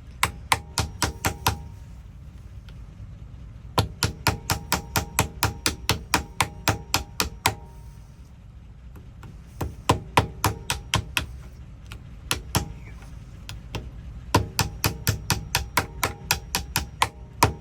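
Small hammer tapping rapidly on a metal lock part, about five or six light blows a second, each with a short metallic ring. It comes in several runs with pauses between them.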